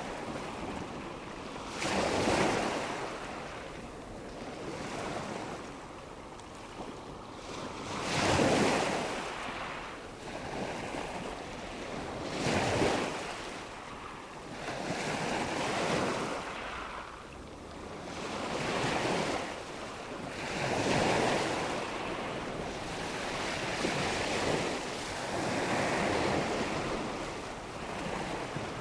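Ocean surf: waves washing in one after another, each a rush of noise that swells and fades over a few seconds.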